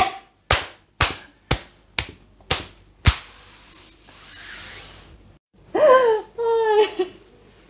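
Hands slapping on skin in a brisk massage stroke, about two slaps a second, stopping about three seconds in. A soft steady hiss follows, then two short vocal sounds from a woman near the end.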